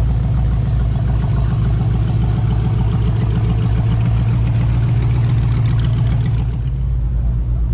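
A car engine running steadily at idle, with an even low-pitched rumble; it eases off slightly near the end.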